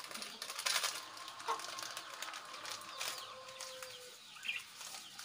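Chickens clucking and calling, with a long drawn-out call in the middle. A plastic seasoning sachet crinkles as it is torn open near the start.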